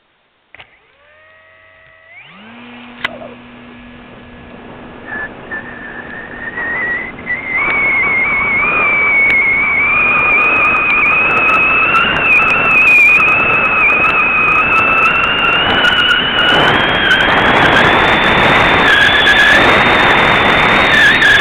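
A click, then a small motor starting about two seconds in: a high whine that climbs slowly in pitch and grows louder, with wind noise rushing over the microphone.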